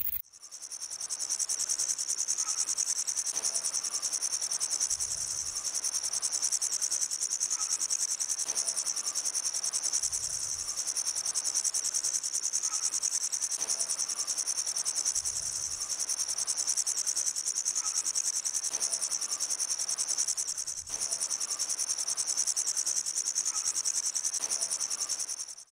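Grasshopper stridulating: a continuous high-pitched rasp of very fast pulses, with a brief dip about 21 seconds in, cutting off just before the end.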